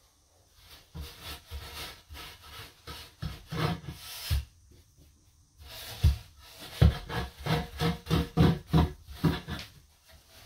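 A long aluminium level dragged back and forth as a screed over a dry-pack sand-and-cement shower bed, rasping and scraping in quick repeated strokes as it strikes off the excess mortar. There is a short pause about halfway through, then a faster, louder run of strokes.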